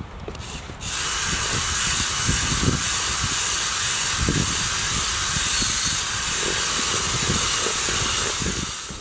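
Cordless drill with a spiral paddle mixer running steadily, stirring wet fishing groundbait in a bucket, with irregular low knocks and churning from the paddle in the mix. It starts about a second in and stops near the end.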